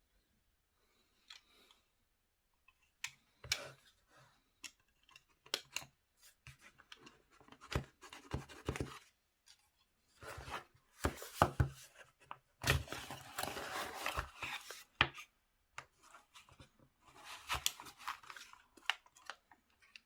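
A retail box and its packaging are handled and opened: scattered clicks and taps, with stretches of rustling, cutting and tearing of cardboard and plastic, the longest about halfway through and again near the end.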